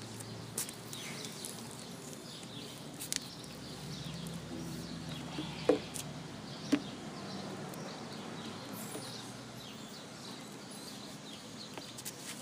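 Outdoor park background with faint bird chirps, and two light knocks a second apart near the middle as an acoustic guitar is lifted and settled on the player's lap.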